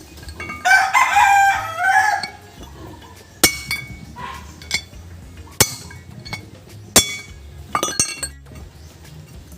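A rooster crows once, about a second in. It is followed by several sharp metallic clinks a second or two apart.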